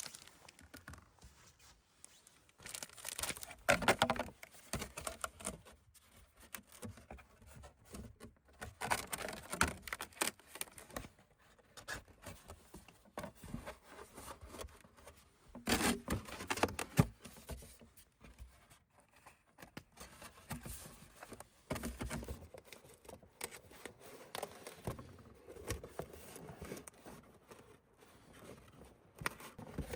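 Irregular handling noises: rustling, tapping and scraping of objects being moved about, in a few louder spells.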